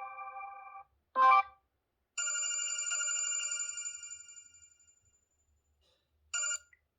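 Sony Xperia 1 IV ringtones playing: electronic bell-like chimes. A tone fades out just under a second in, then comes a short loud chime, then a longer chime that dies away over about three seconds, and a brief chime near the end.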